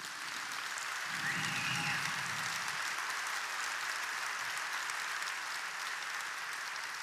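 Large audience applauding, a dense, even clapping that swells over the first couple of seconds and eases slightly near the end.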